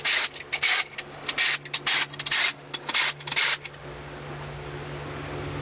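Cordless impact wrench hammering in short repeated bursts as it breaks loose the main bearing cap bolts on a Ford 302 V8 block, stopping about three and a half seconds in.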